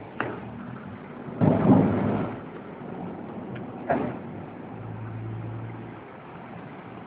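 Steady rain and a car's engine running on a street flooded with hail and water, broken by several sudden loud rumbles. The longest and loudest lasts about a second and comes about a second and a half in.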